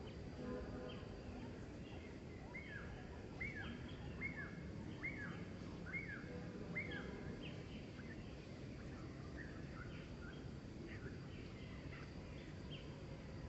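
A bird calling a series of about six short notes, each sliding downward, roughly one a second, starting a couple of seconds in; fainter scattered chirps follow, over a steady low outdoor rumble.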